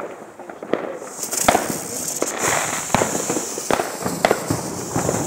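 Fireworks and firecrackers going off, a string of sharp bangs at irregular intervals, with a steady high hiss underneath from about a second in.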